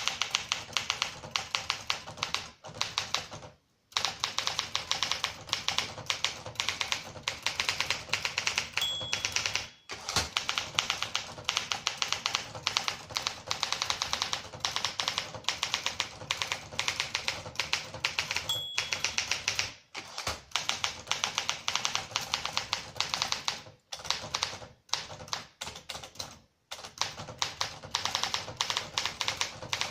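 1964 Olympia SM9 manual typewriter being typed on at a steady, fast pace, its type bars striking many times a second in runs with short pauses. Twice the margin bell gives a short ring near the end of a line, followed about a second later by a thump as the carriage is returned.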